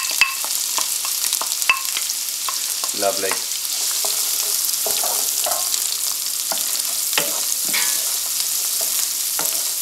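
Chopped onion, carrot and celery sizzling steadily in hot oil in a frying pan, stirred with a wooden spoon that knocks against the pan now and then.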